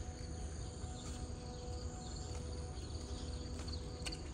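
Crickets chirping at night in a steady high trill that pulses more plainly near the end, over a steady low hum and a low background rumble.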